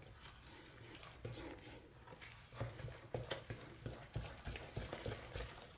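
Wooden spoon stirring flour into a sticky yeast dough in a stainless steel bowl: faint, irregular soft knocks and scrapes, starting about a second in and coming more often after that.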